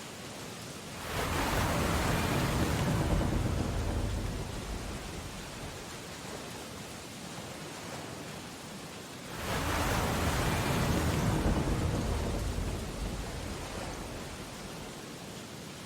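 Steady rain on window glass with two storm waves crashing outside: one about a second in and another at about nine and a half seconds, each swelling quickly and fading over a few seconds.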